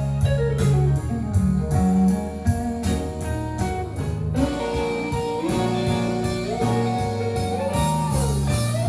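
Guitar-led recorded music with bending, gliding notes over a steady beat, played back through a Marantz MR 1040 console amplifier and loudspeakers.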